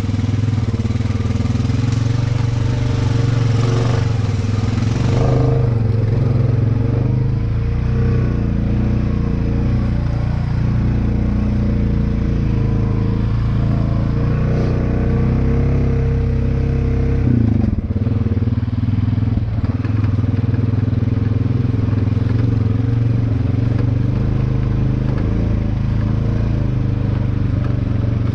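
Honda Rubicon 520 ATV's single-cylinder engine running steadily under way, heard from the rider's seat, with a brief knock about two-thirds of the way through.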